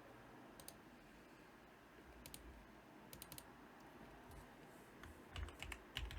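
Faint clicks of a computer mouse and keyboard: a few single clicks spaced out, then a quicker run of taps near the end.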